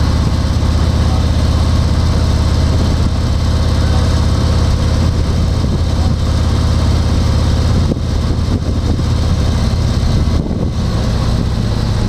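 Car engine and road noise: a steady low hum that drops slightly in level about eight seconds in and again near the end.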